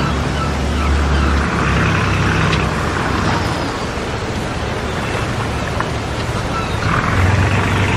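A motor engine running with a steady low hum, its pitch shifting about a second and a half in and again near the end, over a constant background din.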